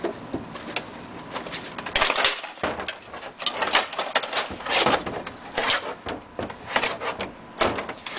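Old paintings being smashed apart: wooden stretcher frames and painted boards cracking and crashing in a series of about six or seven loud, sudden blows.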